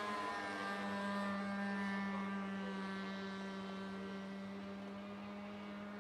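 Great Planes Escapade 40 RC airplane's nitro engine running steadily at high speed in flight, with a constant pitch, slowly fading as the plane moves away.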